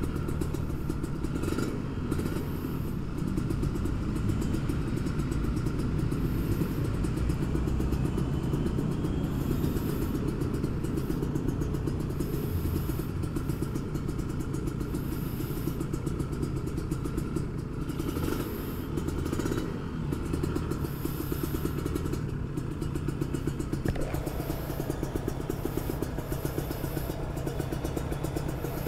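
Kawasaki Ninja RR 150's single-cylinder two-stroke engine, fitted with an oversize-bore (OB) block on the stock carburettor, idling steadily with the bike standing still.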